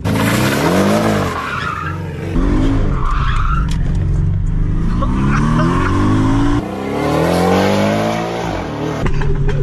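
Porsche sports car engine revving hard in several rising and falling sweeps, with tyres squealing and skidding as the car is drifted.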